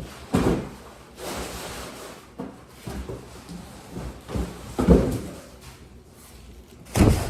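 Cardboard boxes being handled and opened: several dull knocks, the loudest near the end, with scraping and rustling of cardboard between them.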